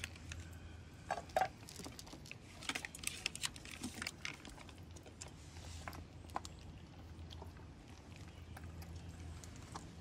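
A cat eating from a bowl: irregular small chewing and crunching clicks, busiest in the first half.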